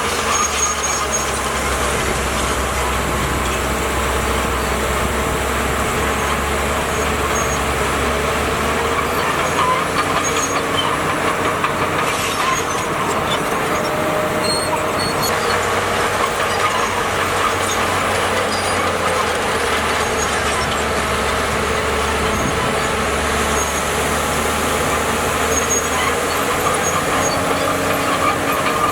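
Bulldozer's diesel engine running steadily, with continuous mechanical clatter of heavy machinery at work.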